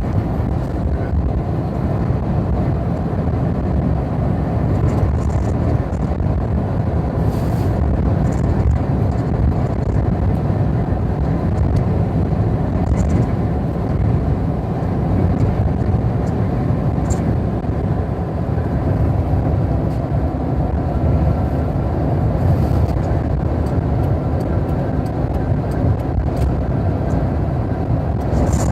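Steady road noise of a car travelling at speed: a continuous low rumble of tyres and engine that does not change.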